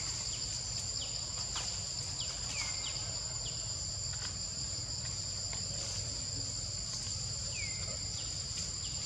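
Steady high-pitched insect chorus droning at two pitches, with short downward-sliding whistled notes coming about once a second, with a lull in the middle.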